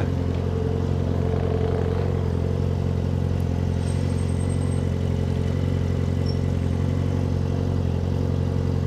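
Yamaha XJ6's 600 cc inline-four engine idling steadily while the motorcycle waits at a red light.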